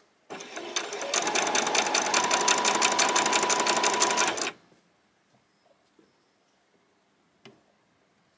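Electric domestic sewing machine stitching a seam. It starts slowly, picks up to a steady fast stitching rhythm, and stops about four and a half seconds in, leaving only a faint click or two.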